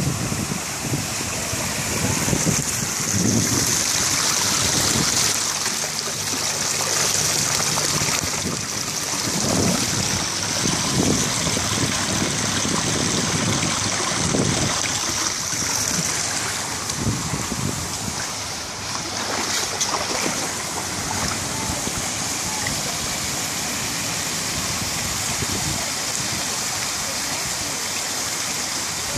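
Water pouring steadily down an artificial stone waterfall, a continuous rushing and splashing.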